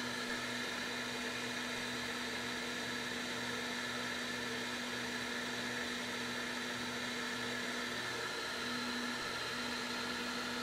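858D hot air gun's fan blowing steadily with a low hum, running on in cool-down mode after the handpiece is set in its cradle while the heating element's temperature falls.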